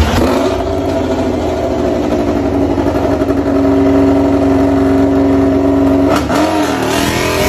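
Repsol Honda RC213V MotoGP bike's V4 engine running at a steady high idle in the pit lane. Near the end the revs dip briefly and then start to rise.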